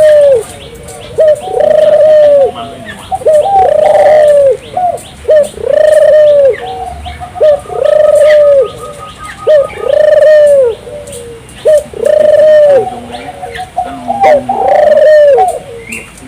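Barbary dove (ringneck dove) cooing over and over: a short note, then a long rounded coo, repeated about every two seconds. Fainter, higher chirps of small birds sound behind it.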